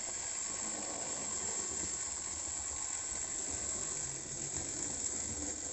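Model Piko BR64 2-6-2 tank locomotive running slowly with its train, its small electric motor and gears whirring steadily.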